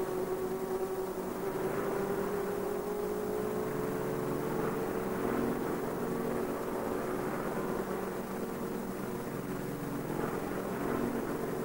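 An engine drone, its pitch rising slowly over the first five seconds or so and then holding steady.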